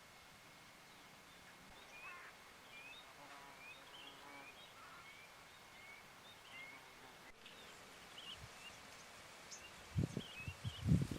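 A bird repeating a short rising chirp about once every three-quarters of a second, over faint outdoor ambience. Near the end, a few loud close thumps and rustles break in.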